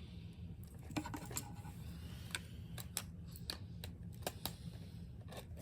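Irregular light clicks and taps of a plastic hair dryer casing and small tools being handled during disassembly, over a low steady hum.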